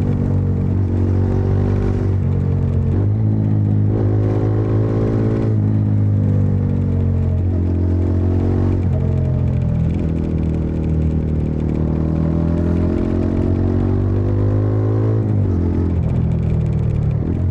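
Bajaj Dominar 400's single-cylinder engine and exhaust under way, the note rising with throttle and dropping back at each gear change or roll-off several times.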